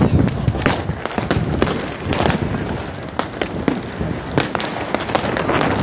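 New Year's fireworks and firecrackers going off all around: an irregular string of sharp bangs and cracks, several a second at times, over a continuous background of noise.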